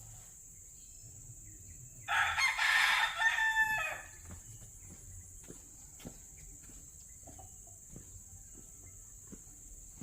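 A rooster crowing once, a call of about two seconds starting about two seconds in.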